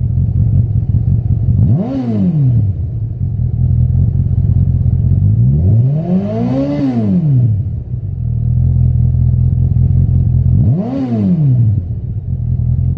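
Honda CB1000R's inline-four engine idling through a Lextek OP1 aftermarket silencer and blipped three times: quick revs about two seconds in and near the end, and a longer, slower rev in the middle, each dropping straight back to idle.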